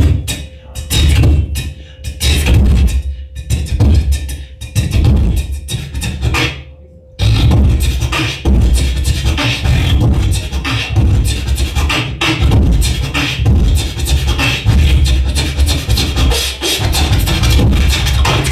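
Amplified beatboxing through a handheld microphone: spaced, drum-like vocal hits for about seven seconds, then after a brief drop a dense, unbroken routine over a steady deep bass.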